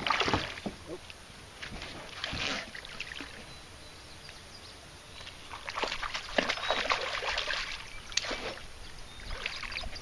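Hooked smallmouth bass splashing at the water's surface beside the boat as it is played toward the landing net. The splashes come in irregular bursts: one right at the start, a smaller one a couple of seconds later, and a busier run in the second half.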